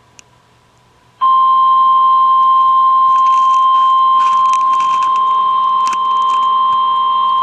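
Weather radio alarm tone: after a moment of near silence, one loud steady beep starts about a second in and holds, with a few crackles of static over it. It is the attention signal that announces a new warning broadcast.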